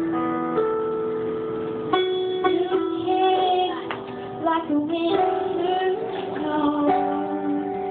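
Keyboard playing a Christmas song, with a female singer coming in about two seconds in and singing over the accompaniment.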